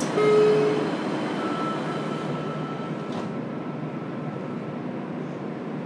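JR Kyushu 303 series electric train running, heard from inside its motor car, with a short loud tone about a quarter second in and a faint thin whine after it.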